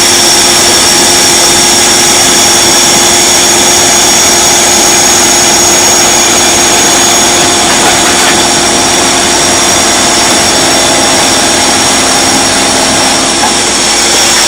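An engine running steadily at a constant pitch, with a droning hum and a high whine on top.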